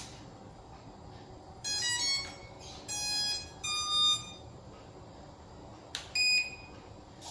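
Electronic beep tones from the SJRC F11 folding drone being powered up: a short stepped run of notes, then two longer beeps, and a click with one more short beep near the end.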